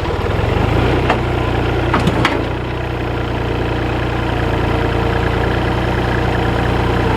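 Tractor engine running steadily, picking up speed just under a second in, with a few sharp knocks around one and two seconds in.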